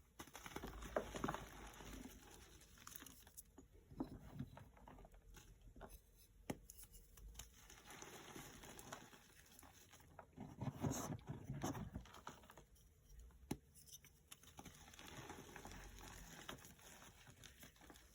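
Blocks of gym chalk being crushed, crunching and crumbling in several bursts with small sharp cracks between them.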